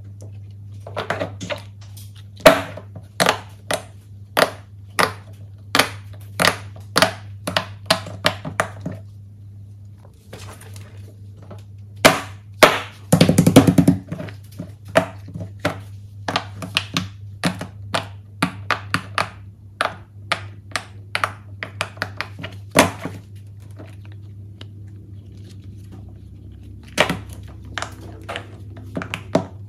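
Silicone pop-it fidget toy bubbles being pressed in by a finger one at a time, a sharp pop about every half second in several runs, with a quick dense flurry of pops about thirteen seconds in. A steady low hum underneath.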